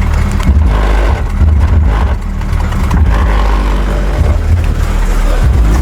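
Loud bass-heavy music from a Chevette's aftermarket car audio system with subwoofers, the deep bass dominating.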